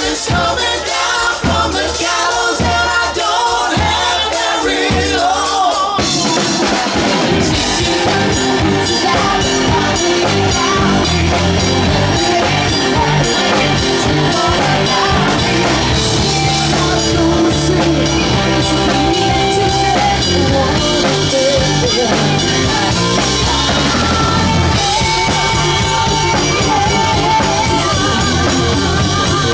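A live band playing a song with singing. It starts sparse with a pulsing beat, and the full band with drums fills in about six seconds in.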